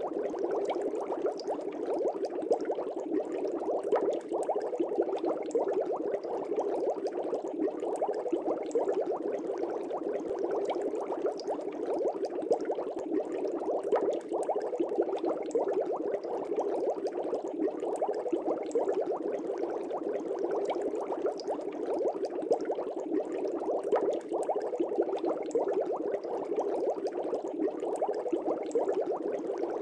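Steady, dense bubbling of aquarium water from air bubbles rising through a fish tank, a constant gurgling churn with many small pops.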